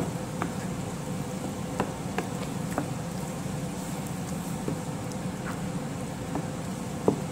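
Wooden spoon stirring thick meat sauce in a large pan, with scattered light taps and wet pops, over a steady low buzzing hum.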